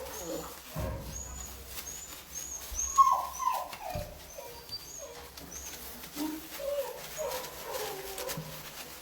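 Young puppies whimpering and yelping, with short high squeaks and a quick run of falling yelps about three seconds in.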